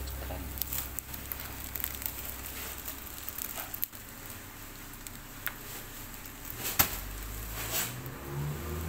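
Continuous band sealer running with a low hum, with scattered clicks and crackles of a plastic bag being handled at the sealing bands. One sharp click comes about seven seconds in.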